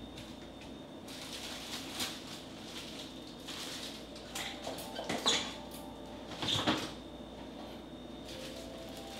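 Rummaging in an open refrigerator: plastic produce bags rustling and items knocking against the shelves, in several separate bursts.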